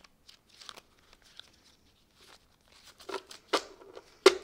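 A thick stack of paper $5 bills being riffled and bent in the hands, the notes rustling and crinkling in short, crisp crackles. These are sparse at first and grow louder about three seconds in, with a sharp paper snap near the end.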